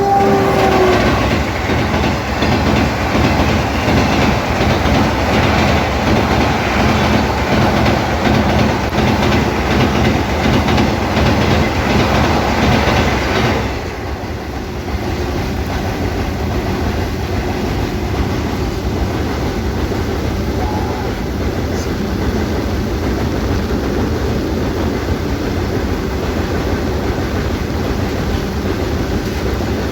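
Train running over a steel rail bridge: a loud rumble with a fast, regular clatter of wheels on rail joints. About 13 seconds in it drops to a quieter, steady rumble. The last moment of a train horn is heard at the very start.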